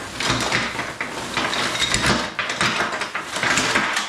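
A jumble of clattering, knocking and rustling as small hard objects are handled, with many quick knocks close together.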